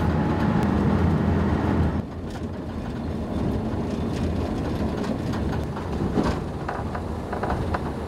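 Engine and road noise of a van heard from inside the cab, a steady low rumble. About two seconds in it changes to lighter, quieter vehicle noise rolling along a town street, with scattered faint clicks and knocks.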